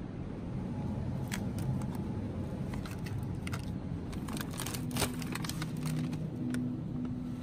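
Plastic food packaging being handled: a scatter of light clicks and crinkles, the sharpest about five seconds in, over a steady low hum.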